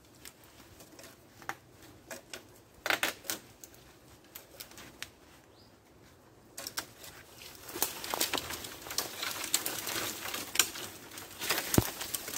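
A hazel shoot being cut with a hand tool among the stems and rustled as it is worked: scattered sharp clicks and snaps at first, then from about halfway a denser run of crackling, cutting and leaf-rustling noises.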